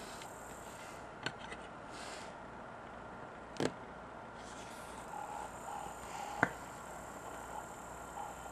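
Steady background hiss with a few short, sharp clicks and knocks, three in all, the loudest about six and a half seconds in, from a smartphone being picked up and handled.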